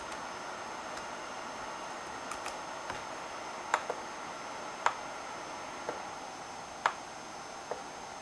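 Laptop touchpad buttons clicking: a few light ticks, then louder single clicks about once a second in the second half. Underneath runs a steady hiss with a faint high whine.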